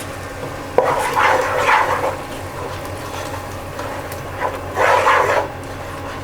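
Spoon stirring and scraping a thick masala paste in a cooking pan, in two bouts: one starting sharply about a second in and another near the end, over a steady low hum.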